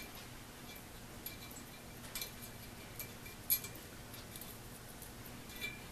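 A few light metallic clinks and taps from a bolt and a screw thread pitch gauge being picked up and handled on the bench, the sharpest about halfway through.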